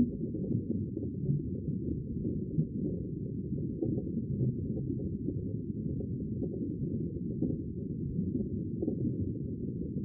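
Underwater ocean ambience: a steady, muffled low rumble of moving water with faint crackles on top.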